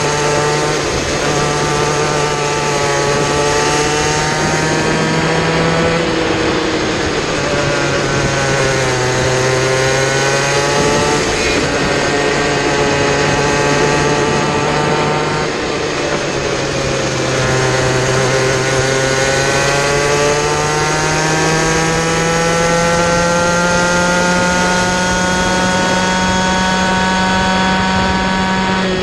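A racing kid kart's engine heard from on board at full race pace, climbing in pitch along the straights and dropping back for the corners several times, with a long steady climb over the last ten seconds or so. Wind rush sits over the engine note.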